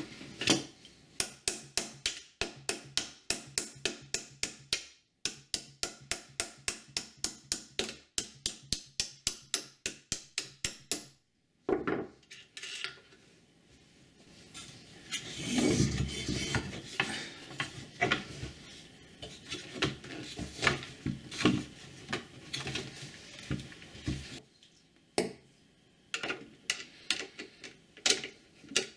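Hammer tapping a bolt through the lower eyelet of a bicycle air rear shock, light sharp taps about three a second for roughly ten seconds with a couple of short pauses. After that, irregular clinks and rattles of metal tools and parts being handled, with a few sharp clicks near the end.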